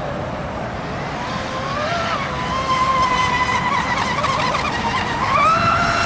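Radio-controlled speedboat running flat out, its motor a high whine that climbs in pitch about two seconds in and again near the end, over the hiss of spray from the hull.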